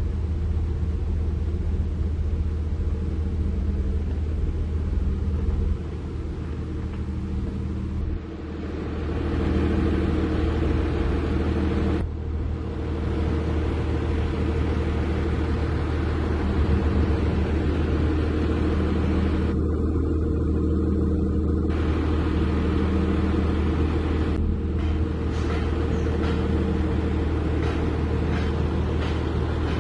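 Heavy diesel engine running steadily. The sound shifts abruptly three times, and a few faint clicks come near the end.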